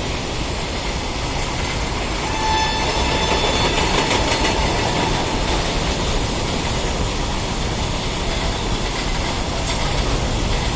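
Train led by a WAG9 electric locomotive running through at high speed: a steady rumble and clatter of wheels over the rails, a little louder from about two and a half seconds in.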